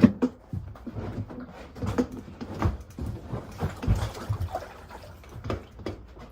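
Irregular knocks, bumps and scrapes of an old cold water storage tank being handled and manoeuvred, with sharper thumps near the start and a few more through the middle.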